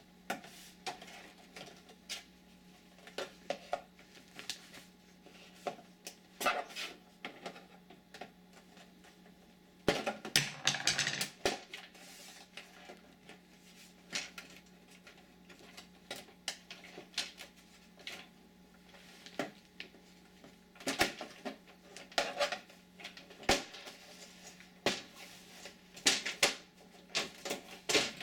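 Scattered clicks and light clatter of hand tools and small screws being worked on a flat-screen TV's case, with a busier stretch of rattling about ten seconds in, over a steady low hum.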